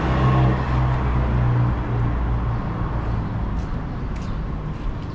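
A car engine running close by with a steady low hum, loudest over the first two seconds and then fading into the general hum of street traffic.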